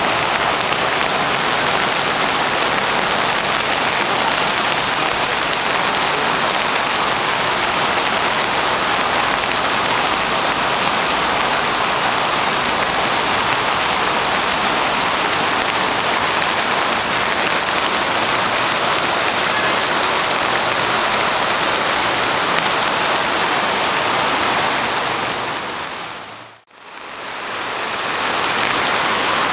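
Steady, loud rush of water from a swollen creek running high, close to flooding. About three seconds before the end it fades out briefly and comes straight back.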